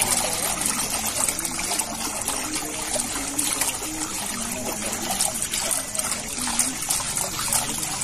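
Hands swishing and churning plant-fibre pulp in a shallow vat of water, a continuous splashing and sloshing: the pulp being stirred through the water to spread the fibres before paper sheets are formed by hand.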